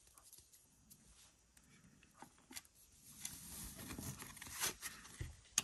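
Faint handling of trading cards and a plastic card sleeve on a table: a few soft ticks, then light rustling and tapping of cards from about three seconds in, ending in a sharp click.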